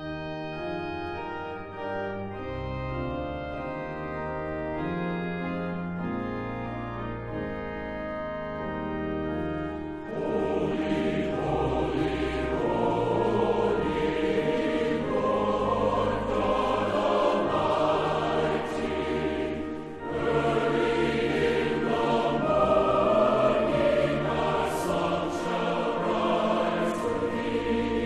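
Choral music with organ: held organ-like chords, then from about ten seconds in a choir joins and the music grows louder.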